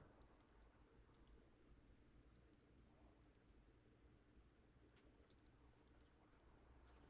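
Near silence: faint room tone with scattered small, high clicks in two clusters, the first near the start and the second about five seconds in.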